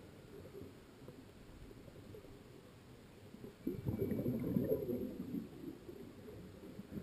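Scuba regulator exhaust bubbles gurgling, heard dull and muffled through an underwater camera housing. A louder surge of bubbling comes about three and a half seconds in and lasts about two seconds, as a diver breathes out.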